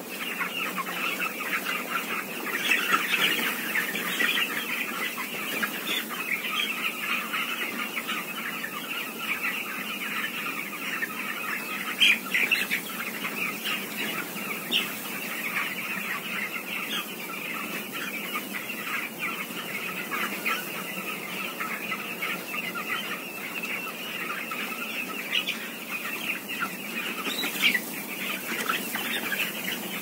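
A large flock of 13-day-old Venky's broiler chicks peeping together in a dense, steady chorus of high chirps, with a few louder cheeps standing out now and then.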